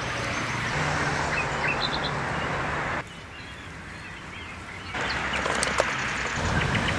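Birds chirping over a steady low mechanical hum; the background changes abruptly twice, dropping about three seconds in and rising again about five seconds in.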